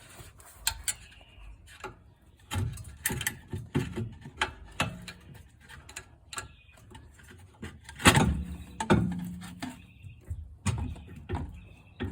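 Metal knocks and clicks as the old rear shock absorber is worked free of its lower mount, with the loudest clank about 8 seconds in, ringing briefly.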